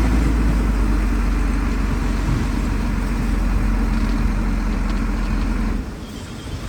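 Heavy diesel engine of an earthmoving machine running steadily with a strong low hum. It drops suddenly in level near the end.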